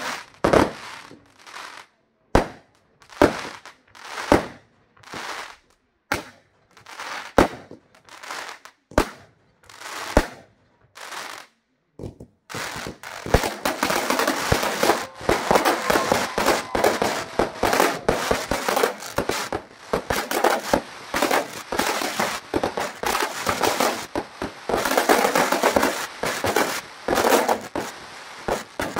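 Fireworks display: aerial shells bursting about once a second, each bang trailing off. About twelve seconds in, after a brief pause, a dense barrage of rapid pops and crackling sets in and keeps going.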